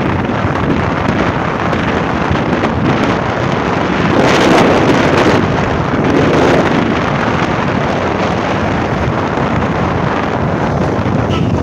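Wind rushing over the microphone of a moving motorcycle, with road and engine noise underneath. The rush grows louder for about a second roughly four seconds in, and again briefly around six seconds.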